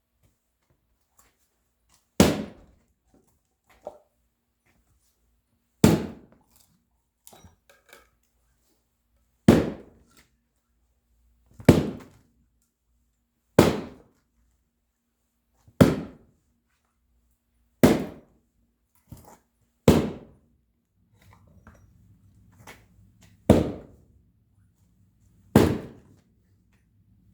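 Axe blows splitting firewood: about ten sharp, heavy strikes, roughly one every two seconds, each a single hard thunk of the blade going into the wood.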